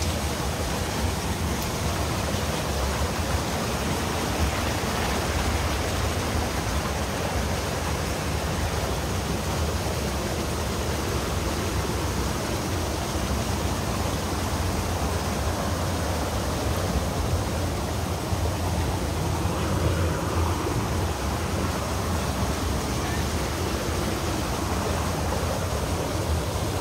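Wind buffeting the microphone: a steady rushing hiss over a low, fluctuating rumble.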